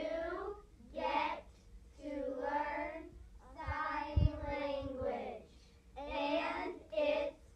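A group of children singing together in short phrases with held notes. A brief low bump about four seconds in.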